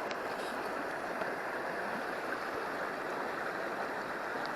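Steady rushing of a river's flowing water, an even wash of noise with no change.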